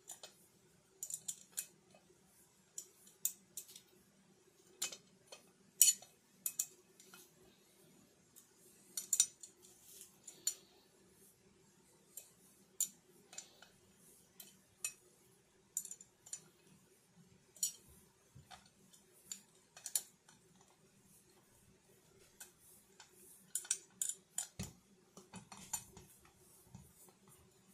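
Allen key working small metal bolts into a metal mounting plate: irregular sharp metallic clicks and ticks as the key turns and knocks against the bolt heads. A faint steady hum lies underneath.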